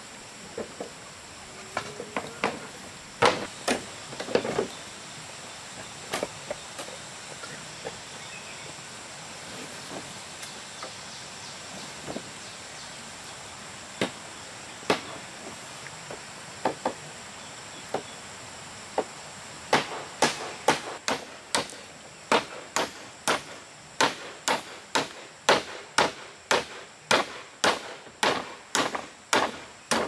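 Blows of a hand tool on wood during building: a few scattered strikes at first, then a steady run of about two strikes a second for the last ten seconds.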